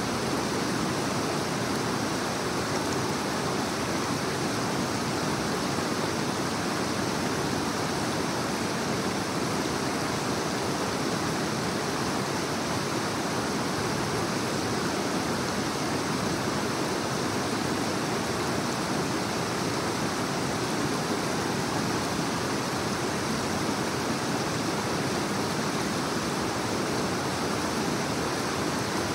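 A fast-flowing creek rushing over rocks: a steady, unbroken rush of water.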